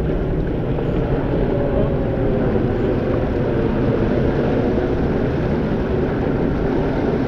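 Steady rushing of wind on the microphone and water along the hull of a sailing yacht under way.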